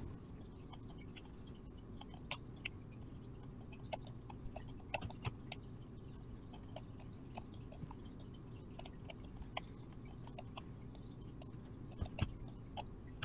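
Computer mouse clicking irregularly and quickly, dozens of short sharp clicks, over a faint low room hum, as a brush mask is painted in sped-up footage.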